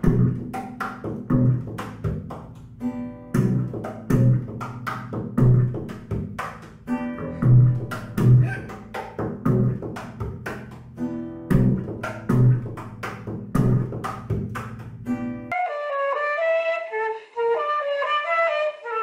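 Double bass played by plucking, a run of deep notes with sharp percussive clicks between them. About fifteen seconds in it cuts to a flute playing a melody.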